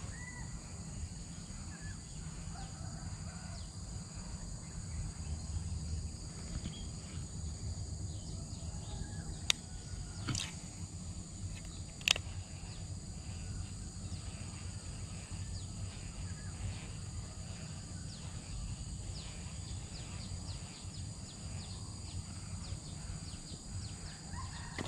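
Steady outdoor ambience of wild animal calls over a low rumble. Two sharp clicks, about nine and a half and twelve seconds in, come from the Shimano Casitas baitcasting reel being worked while fishing a topwater frog lure.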